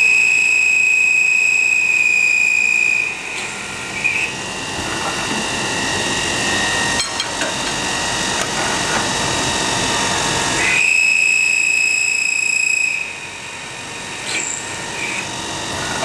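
MSI ChamferMate chamfering machine's turning head running and cutting a chamfer on a bar end: a loud, high-pitched ringing squeal of the cut for about three seconds at the start and again about eleven seconds in, over the machine's steady running noise.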